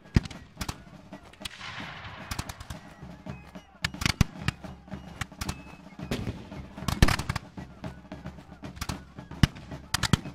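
Gunfire on a battle soundtrack: many sharp shots at irregular intervals, some single and some in quick clusters, varying in loudness, over a steady low hum.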